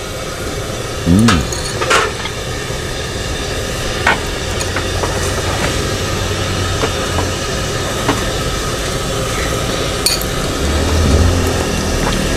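A spoon and fork clinking against a soup bowl now and then while eating noodle soup, over steady street background noise. A motor vehicle's engine comes in low near the end.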